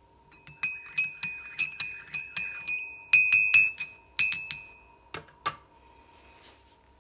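Metal teaspoon stirring coffee in a ceramic mug, clinking against the inside of the mug about four or five times a second with a bright ringing tone. The clinking pauses briefly near the middle, and then two sharper taps come about five seconds in.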